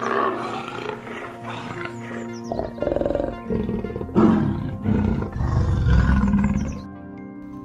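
Leopard growling: about four rough growls in a row, each about a second long, over steady background music.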